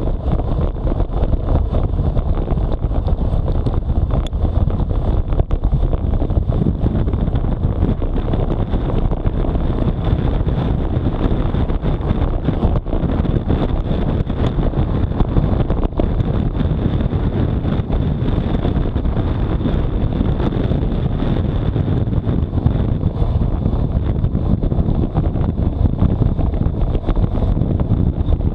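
Steady wind rush buffeting the microphone of a bike-mounted action camera on a road bicycle at about 60 km/h, mixed with tyre noise on the road, and a faint steady high whine.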